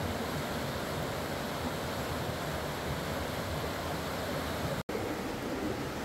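Steady rushing of a rocky mountain creek's white water, with a momentary dropout to silence about five seconds in.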